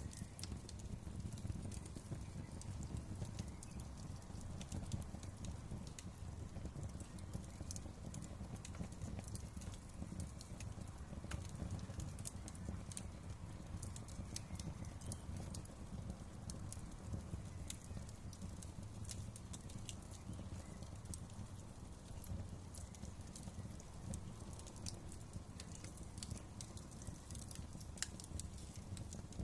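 Wood fire crackling in a fireplace: a steady low rumble from the burning with frequent, irregular sharp pops and snaps.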